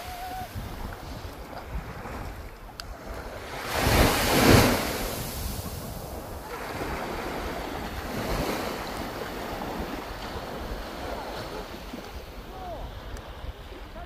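Small waves breaking and washing up the sand in shallow surf, with wind buffeting the microphone; a louder rush of water and wind swells about four seconds in.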